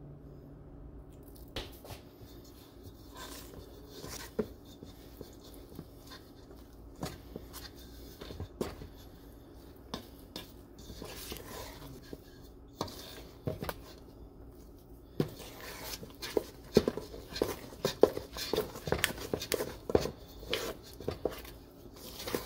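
A fork clinking and scraping against a stainless steel bowl as butter and icing sugar are worked together by hand into buttercream. The taps are scattered at first and grow busier about two-thirds of the way in.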